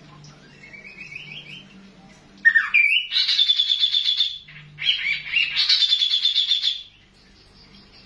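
Caged kaso-kaso (kidangan, tepus glagah) songbird singing. A faint rising run of notes comes first. Then two loud phrases of about two seconds each follow, each opening with a swooping note and running into a fast, high trill.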